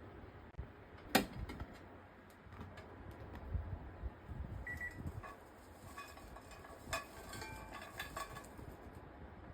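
Kitchen handling noises: a sharp clack about a second in, then scattered light clicks and knocks of utensils and cookware.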